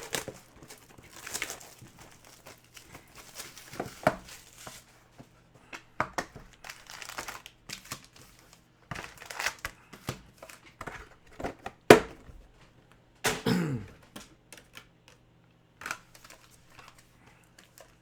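Plastic shrink-wrap and packaging on a trading card box being torn open and crinkled, with scattered handling clicks, a sharp tap about twelve seconds in and a brief falling tone a second later.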